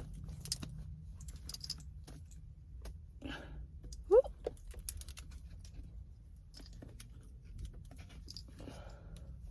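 Quiet handling noise inside a car: scattered small clicks and rustles over a steady low hum, with one brief rising voice-like sound about four seconds in.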